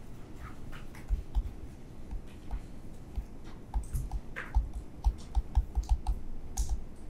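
Stylus tapping and scratching on a tablet or pen-display surface during handwriting: an irregular run of short, light clicks and knocks, thickest about four to six seconds in.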